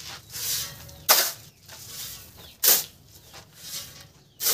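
Steel shovel digging into a sand pile, three strokes about a second and a half apart. Each is a sharp scrape of the blade into the sand, with a softer hiss of sand sliding off the shovel between strokes.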